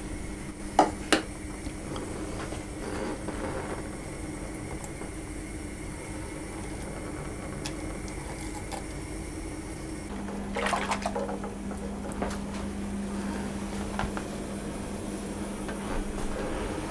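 Silicone spatula stirring and scraping butter, chocolate pieces and condensed milk in a glass bowl over a pan of hot water (a bain-marie), with two sharp knocks about a second in. A steady low hum runs underneath.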